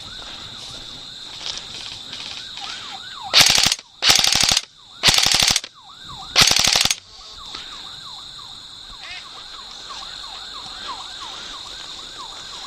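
An airsoft gun fires four short full-auto bursts, each about half a second long and fast-stuttering, starting a little over three seconds in. Behind them runs a steady high-pitched whine with a quick repeating warbling chirp.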